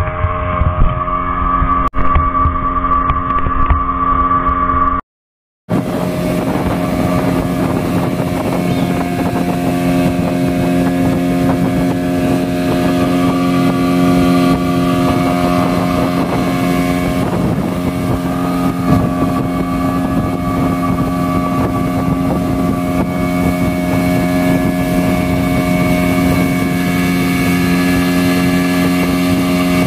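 Speedboat engine running at a steady pitch, a constant drone. It cuts out for a moment about five seconds in, then carries on.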